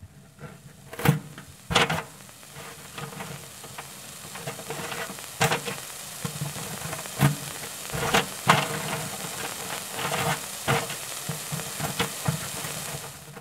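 Silkworms munching leaves: a dense, steady crackle made of many small crisp clicks and crunches, with a few louder snaps scattered through it.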